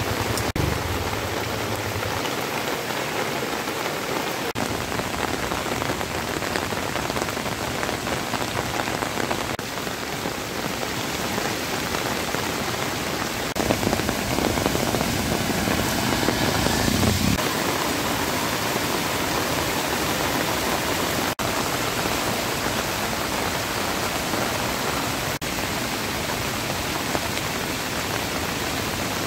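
Heavy rain pouring steadily on wet ground, a constant hiss. About halfway through it swells louder and fuller for a few seconds, as vehicles drive through water on the road.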